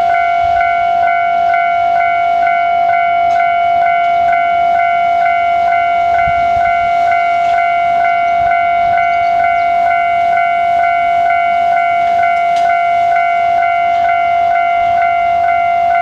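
Japanese level-crossing electronic warning bell ringing steadily at about two strokes a second over a held tone, sounding while the barriers are down for an approaching train.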